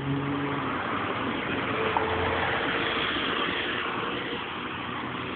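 Yamaha R1 sport bike's inline-four engine running; its steady tone fades out in the first half second into a dense, rough rush of engine noise.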